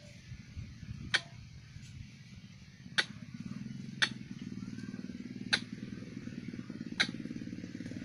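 Sharp single clicks come every one to one and a half seconds, over a low steady hum that gets louder about three seconds in.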